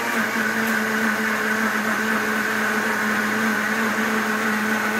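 Electric countertop blender running steadily at one pitch, blending blackberry juice.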